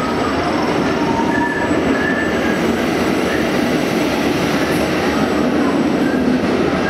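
SBB Class 420 (Re 4/4 II) electric locomotive running light through the station: a steady rumble of wheels on rail, with short high wheel squeals now and then.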